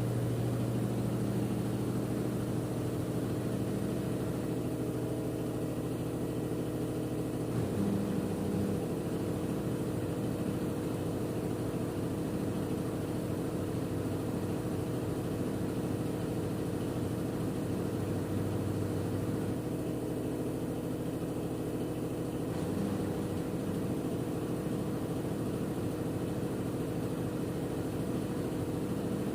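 LG F10B8MD front-loading washing machine in its final spin on the cotton programme, set to 800 rpm: a steady motor and drum hum with several held tones. A strong low hum fades about eight seconds in and comes back briefly later.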